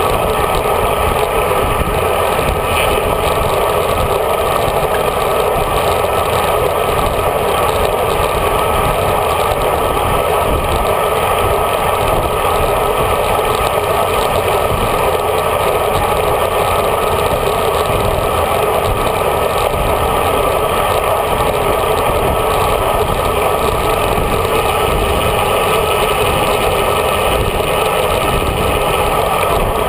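Steady wind rush on a road bike's bar-mounted action camera, with tyre rumble on the road, at riding speed in a group ride. The sound is loud and unchanging throughout.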